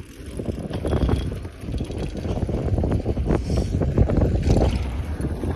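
Mountain bike riding downhill on a trail: wind buffeting the microphone over the rumble of tyres and the rattle of the bike, with short knocks throughout.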